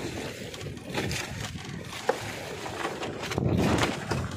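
Plastic carrier bag rustling and crinkling as it is handled, with one sharp click about two seconds in.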